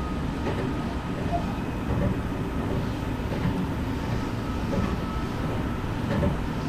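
Meitetsu electric train running along the track, heard from inside behind the cab: a steady rumble of wheels on rail with a faint steady whine.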